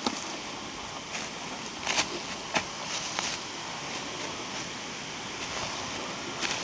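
Steady wind rushing over the microphone, with a few sharp crunches of footsteps on dry forest litter.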